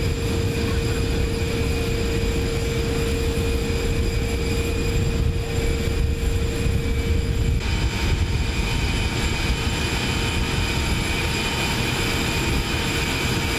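Jet aircraft engines running steadily: a dense low rumble under a constant whine, with the mix shifting slightly about seven and a half seconds in.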